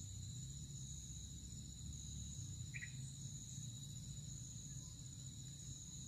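Steady chorus of insects: a continuous high buzz at two pitches, with a low rumble beneath and a single brief chirp about three seconds in.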